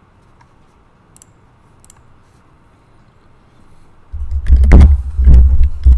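Computer keyboard and mouse clicks picked up close to a desk microphone: a few faint clicks at first, then loud low thumping and clicking from about four seconds in.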